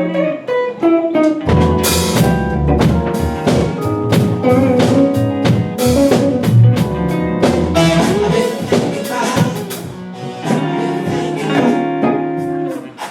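A band playing live in the room: a guitar line at first, then a drum kit comes in about a second and a half in and plays a groove under the guitar, easing off near the end.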